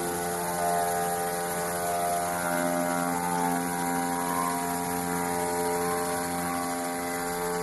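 Aoke three-head sample cutting plotter running: a steady motor whine made of several tones, with higher tones coming and going as the heads move.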